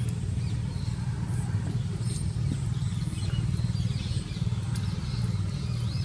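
A steady low rumble with faint short high chirps scattered over it.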